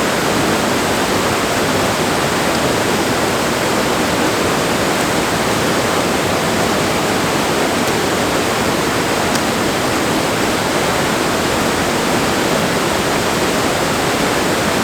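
Waterfall pouring, a loud, steady rush of falling water with no change throughout.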